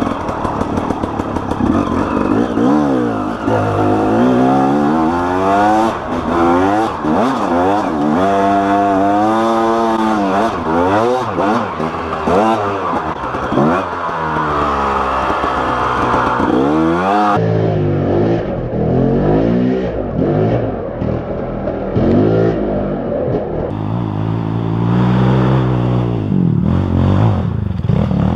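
Two-stroke KTM EXC dirt bike engine riding a trail, its pitch repeatedly rising and falling back as the throttle is opened and closed and it shifts gear. After a cut a little past halfway, a dirt bike engine keeps running and revving.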